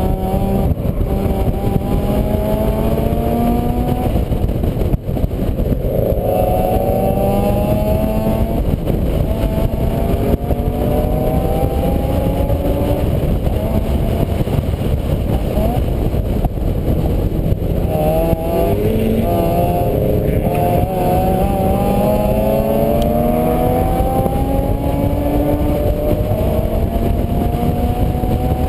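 A vehicle engine running under way, rising in pitch and then dropping back several times, under a heavy low rumble.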